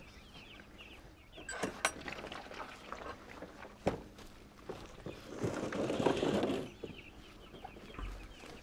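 Meat chickens peeping and clucking in quick repeated chirps, with a few sharp knocks and a louder rustling noise lasting about a second past the middle.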